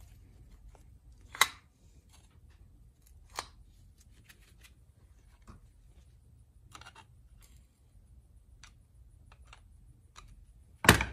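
Small metal parts of a starter motor being handled and fitted: scattered sharp clicks and clinks, with a louder knock near the end.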